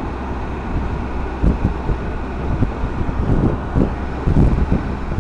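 Triumph Tiger motorcycle running at road speed, its engine a steady low hum under rushing wind, with irregular gusts of wind buffeting the helmet microphone.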